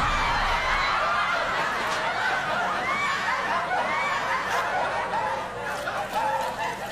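Audience laughter from a comedy laugh track: many people chuckling and snickering at once.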